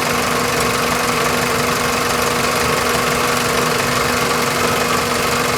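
A 2001 Toyota Corolla's 1.8-litre four-cylinder engine idling steadily at a constant pitch, with the engine bay open.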